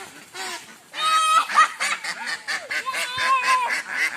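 Domestic ducks quacking and honking in rapid, repeated calls, starting about a second in.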